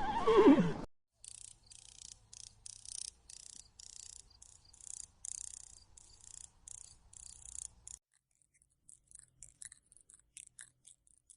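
The tail of a horse's neigh, falling in pitch, in the first second, then a run of high, raspy chirps about twice a second for some seven seconds, followed by a few faint scattered ticks.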